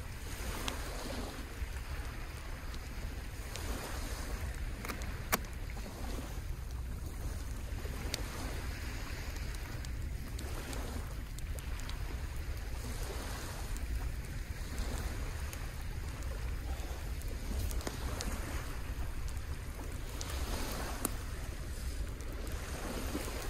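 Small waves washing onto a sandy shore, swelling and falling every few seconds, with wind rumbling on the microphone. Scattered sharp clicks and taps sit on top, the loudest about five seconds in.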